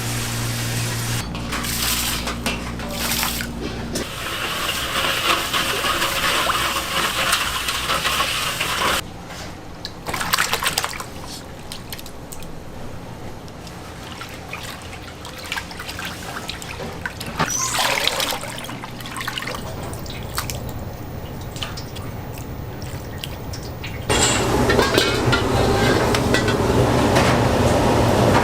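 Kitchen sounds from noodle-soup cooking, cut together in several short clips: water or broth running and being poured.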